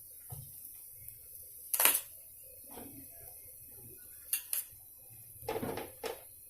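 Serving spoon knocking and scraping against a pan as cooked basmati rice is scooped in: one loud knock about two seconds in, two quick knocks a little after four seconds, and a short cluster near the end.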